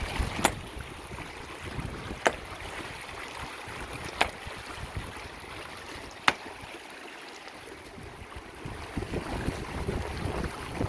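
A hammer striking a river boulder four times, sharp cracks about two seconds apart, the last the loudest, over the steady rush of a shallow river. The blows are meant to send a shock through the rock that stuns or kills fish sheltering beneath it.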